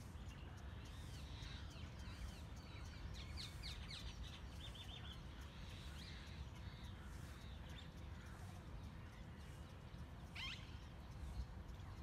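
Small birds chirping and trilling in short, high calls through the first half, with one quick sweeping call about ten seconds in, over a steady low outdoor rumble.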